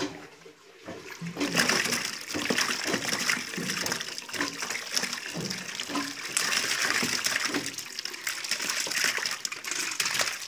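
Small live fish tipped from a metal bucket into a plastic basin of water, with continuous wet splashing and slapping as they land and thrash. It starts about a second and a half in.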